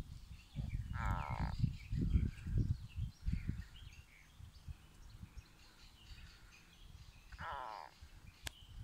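A frog being swallowed alive by a snake gives a strange, drawn-out croak twice, once about a second in and again near the end: a distress call. Low rumbling on the microphone in the first few seconds.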